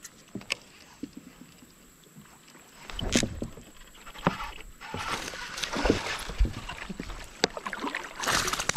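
Irregular knocks and water sloshing around a small plastic kayak. Near the end, a hooked bass thrashes at the surface and throws up a loud, splashy burst of water.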